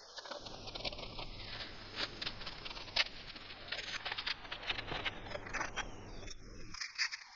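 Dense, irregular scratching and small clicks, with a short break near the end.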